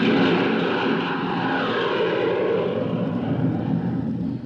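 Sound effect of a Matador missile launching: a loud, steady roar of its engine that starts to die away near the end.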